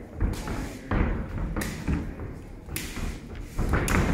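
Punches landing on a trainer's hand pads during pad work: sharp slaps and thuds at an irregular pace, about six in four seconds, some coming in quick pairs.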